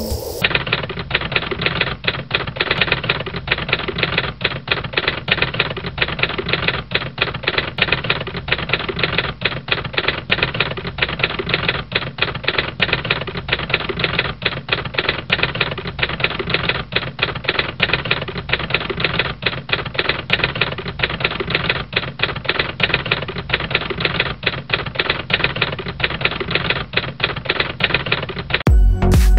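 Typewriter keys clacking rapidly and without pause, a typing sound effect. Near the end it gives way to electronic music.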